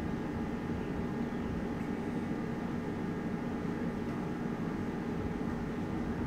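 A vehicle engine running steadily, a constant drone with no change in speed.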